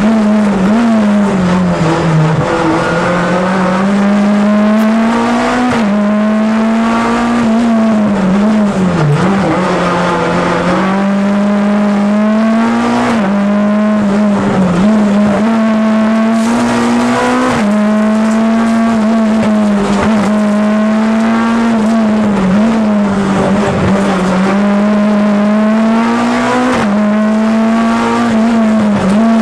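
Hillclimb race car's engine heard from inside the cockpit, running hard at high revs. Its pitch dips and climbs again every few seconds through gear changes.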